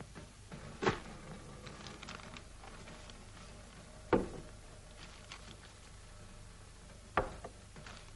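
Three soft knocks of small objects being handled and set down, about a second in, about four seconds in (the loudest) and about seven seconds in, over a steady low hum and hiss.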